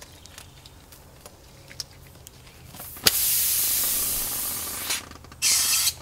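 Air hissing out of a pressurized tire through a quarter-inch puncture as the bolt in it is pulled free, with the tire's TireJect sealant inside. The hiss starts with a click about three seconds in and fades over two seconds, and a second short burst of hiss comes near the end.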